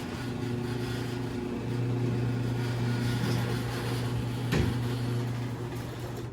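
Garage door opener motor running with a steady hum as it raises an insulated sectional garage door, with one sharp click about four and a half seconds in. The hum cuts off abruptly at the end.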